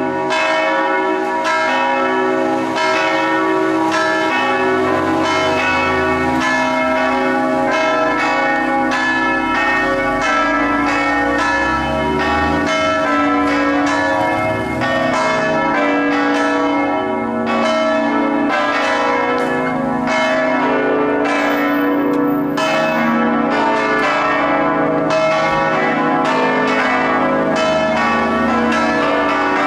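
Orthodox monastery church bells ringing a continuous peal: several bells of different pitches are struck in quick succession, each left ringing on.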